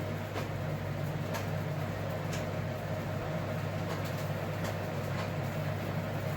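Steady electric hum of a running kitchen appliance, with a few faint, separate ticks over it.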